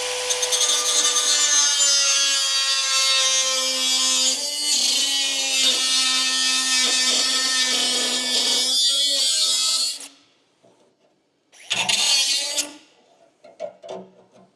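A handheld power tool cuts into rusted steel body panel, running steadily for about ten seconds. It gives one shorter burst, then a few brief ones near the end.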